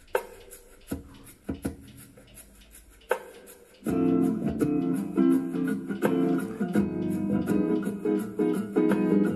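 Background music on guitar: a few sparse plucked notes ring out, then steady, louder strumming begins about four seconds in.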